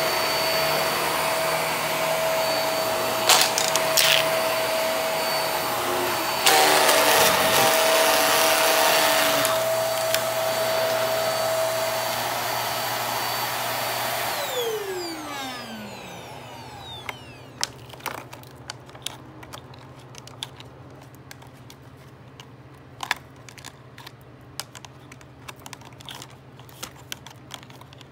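HART vacuum cleaner running on carpet with a steady motor whine, growing louder and rougher for a few seconds midway. About fifteen seconds in it is switched off and the motor winds down in a falling whine, followed by scattered light clicks and taps.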